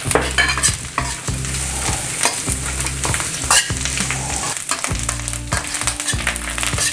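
Wood ear (black fungus) mushrooms and onion sizzling in butter in a pan, with a utensil stirring and scraping in short, repeated strokes.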